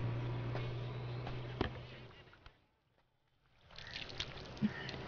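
A low, steady vehicle engine hum fades away over about two and a half seconds, with a single knock partway through, leaving a second of near silence. Quiet outdoor background then returns with a few small clicks and knocks.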